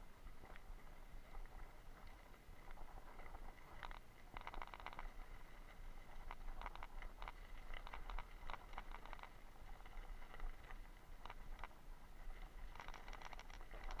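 Bicycle ridden over a rough dirt track: bursts of rattling and clicking from the bike as it goes over bumps, over a constant low rumble.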